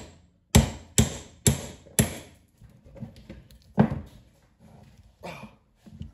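Framing hammer striking a steel drift set in the eye of an old hammer head held in a bench vise, driving out the broken-off wooden handle stub. Four sharp metal-on-metal blows come about two a second, then after a pause one more hard blow and a lighter one near the end.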